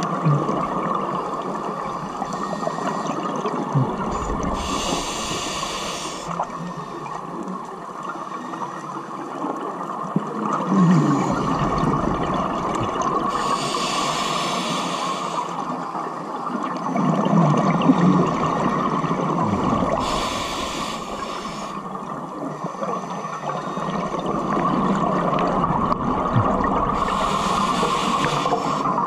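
Scuba regulator breathing underwater: a hissing inhale about five times, each a second or two long, alternating with the low bubbling rumble of exhaled air, over a steady underwater hum.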